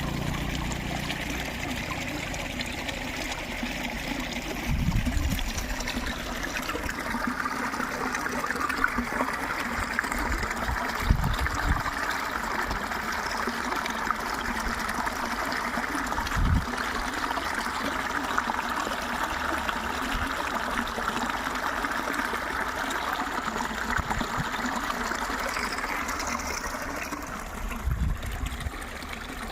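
Flowing water trickling and splashing steadily, with a few dull low thumps scattered through it.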